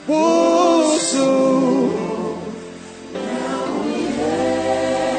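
Gospel worship song: voices holding long sung notes over accompaniment, with a loud phrase entering at the start, easing off midway, then building again about three seconds in.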